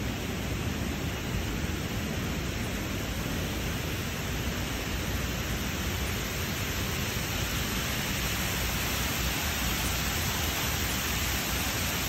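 Water pouring down the face of a tall plaza wall fountain into a shallow pool at its base, a steady rushing hiss that grows a little louder near the end.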